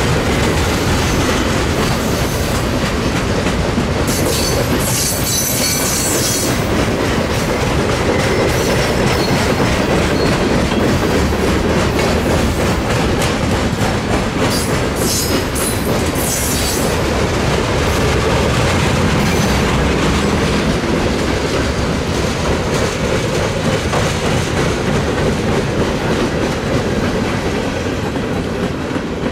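Loaded coal hopper cars of a freight train rolling past with a steady, heavy rumble and clatter of wheels on rail. Brief high-pitched wheel squeals rise over it about four seconds in and again around fifteen seconds in.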